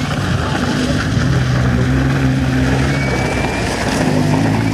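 Škoda 120 GLS rally car's rear-mounted four-cylinder engine running hard as the car slides round a muddy corner, its note holding fairly steady with a slight dip near the end.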